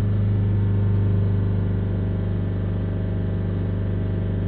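Land Rover Freelander four-cylinder diesel engine held steadily at about 3000 rpm, heard inside the cabin. The revs are held for a minute or two to circulate freshly added oil through the engine.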